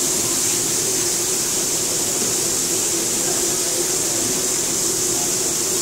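Steady hissing from a street-food frying station: gas burners and hot oil frying on flat iron griddles, with a low steady hum underneath.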